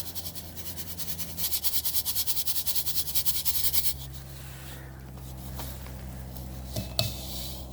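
Crushed roasted ore being shaken through a 40-mesh classifier screen: a fast, even scratching rattle, several strokes a second, that stops about four seconds in. A low steady hum continues under it, with a couple of light knocks near the end.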